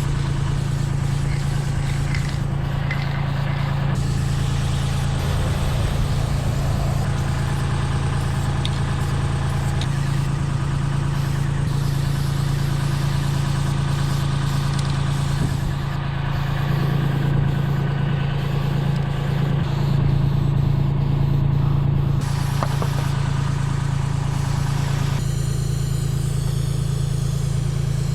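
An engine running steadily, with the hiss of a spray-paint can fitted with a wide fat cap that stops about two-thirds of the way through and starts again a few seconds later.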